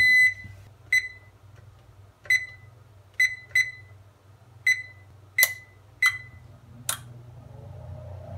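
Electric range's electronic oven control beeping after power is restored: the tail of a long power-up tone, then about seven short, evenly pitched key-press beeps spread over several seconds, some with a click, and a single click near the end over a steady low hum.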